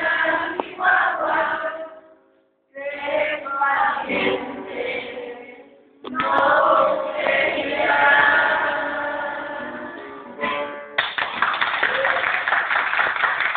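A group of children singing together in chorus, the last phrase held and fading away; then applause breaks out about eleven seconds in.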